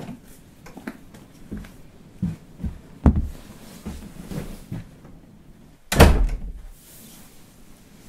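A series of dull knocks and thuds, the loudest a heavy thump about six seconds in that trails off in a low rumble.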